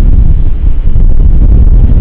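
Strong storm wind buffeting the microphone: a loud, steady low rumble.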